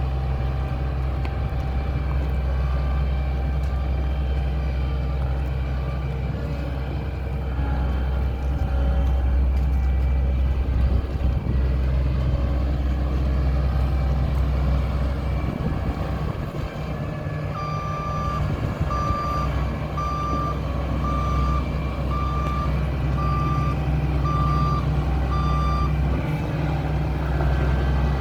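John Deere 2256 combine harvester's diesel engine running steadily. Past the middle a reversing alarm starts beeping about once a second for some eight seconds as the machine backs up, then stops.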